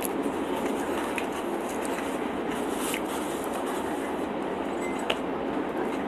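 Close-up mouth sounds of someone chewing a soft bread sandwich, with a few faint wet clicks and a sharper click about five seconds in, over a steady background hiss.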